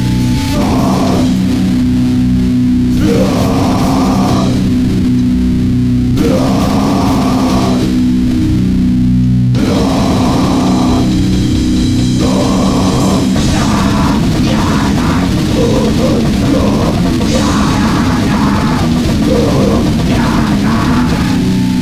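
A noise-grind band playing loud, heavily distorted guitar and drums in a chaotic, unbroken wall of sound. In the first half it switches back and forth between two riffs roughly every second.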